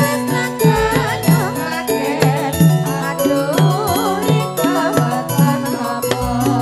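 Live campursari music: a steady drum beat and bass notes under a wavering, ornamented sung melody.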